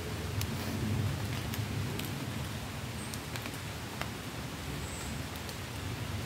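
Steady rain falling through woodland trees, with scattered sharp drips from the leaves over a low rumble.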